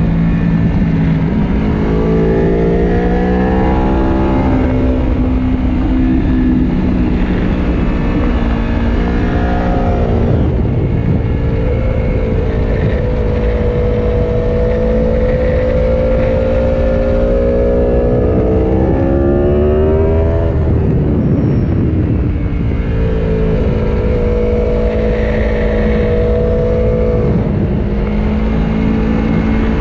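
Aprilia Tuono V4 Factory's V4 engine at racing speed, heard from onboard. The pitch climbs hard under acceleration and falls away at gear changes and braking, over and over, with a steady rush of wind.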